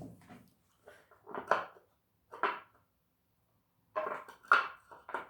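Small hinged wooden box being handled on a workbench: a series of separate wooden knocks and clatters, with three coming close together near the end.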